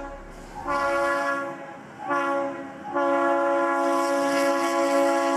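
Freight diesel locomotive's air horn sounding a chord of steady tones: two blasts of about a second each, then a long held blast from about three seconds in, warning of its approach to a grade crossing.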